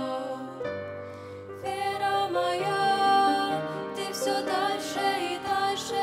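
Female vocal trio singing a slow, gentle hymn in Russian over a soft accompaniment, the voices wavering in pitch, with a brief lull about a second in.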